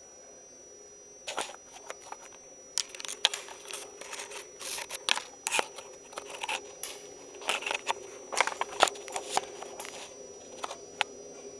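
A run of irregular sharp clicks and light taps, starting about a second in, thickest in the middle and thinning out near the end, over a faint steady hum.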